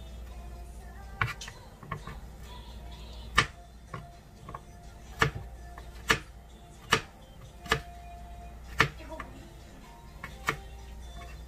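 Kitchen knife cutting vegetables on a plastic cutting board: single sharp knocks of the blade on the board, about one a second and unevenly spaced, over quiet background music.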